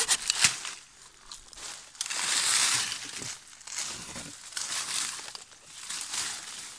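Leaves and twigs of a freshly cut leafy branch rustling and crackling as it is pulled and dragged through undergrowth, loudest about two seconds in. It opens with the last stroke or two of a hand pruning saw through the wood.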